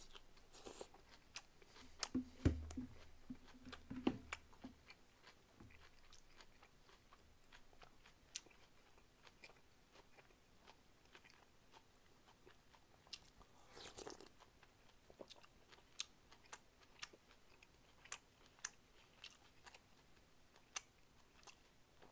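Close-miked chewing of black goat soup with bean sprouts and greens: scattered soft mouth clicks and crunches, with a few dull low knocks about two to four seconds in.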